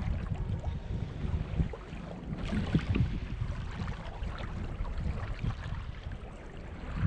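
Wind buffeting the microphone and small waves lapping against a kayak hull on open sea, with a few light ticks.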